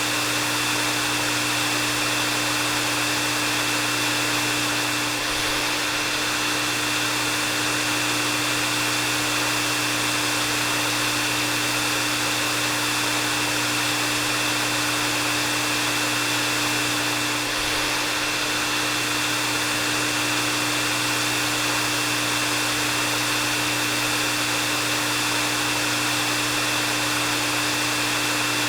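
Hair dryer running steadily: a constant rush of air with a low hum and a thin high whine running through it.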